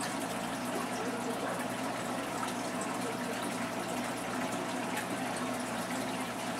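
Saltwater reef aquarium's water circulation: a steady rush of moving water with a steady hum underneath.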